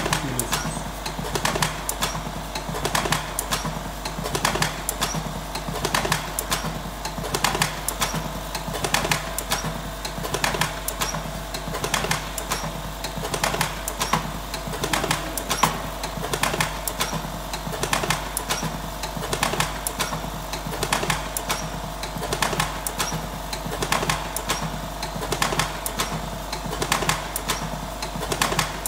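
Electric cigarette filling machine running: a steady motor hum with a regular, rapid clacking of its filling mechanism as it fills tubes with tobacco.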